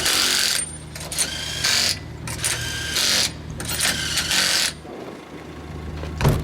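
Ford Fiesta R5 rally car's engine heard farther off in four short bursts of throttle with gaps between, as it drives on along the test stage. A single sharp knock follows near the end.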